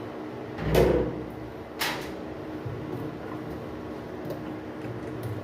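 Parts and tools being handled while a top-load washing machine's drive mechanism is taken apart: a dull thump about a second in and a sharp click shortly after, over a faint steady hum.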